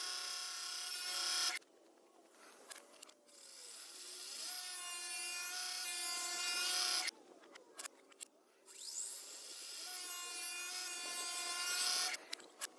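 A power tool cutting wood in three passes, each a steady pitched whine that swells gradually and then stops abruptly, with quieter scraping and a few clicks between them. The sound runs backwards, the way a cut sounds when it is reversed.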